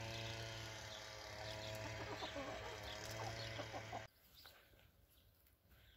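Chickens clucking, with small birds chirping high above and a steady low hum underneath; it all cuts off abruptly about four seconds in, leaving only faint sounds.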